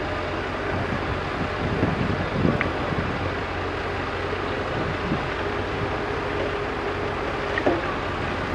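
JCB backhoe loader's diesel engine running steadily under work, with a faint steady whine in the second half and a few light clanks.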